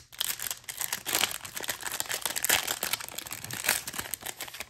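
Foil wrapper of a Topps Chrome trading-card pack being torn open and crinkled by hand: a dense run of crackles that stops abruptly near the end.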